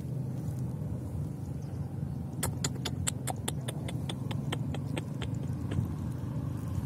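A quick, irregular run of small sharp clicks lasting about three seconds, starting a couple of seconds in, as hands work a baited eel line at a burrow at the water's edge. Under it is a steady low rumble.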